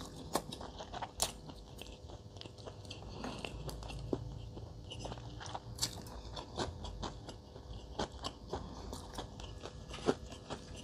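Close-miked chewing of fried fish cake: wet mouth clicks and soft crunches at an irregular pace.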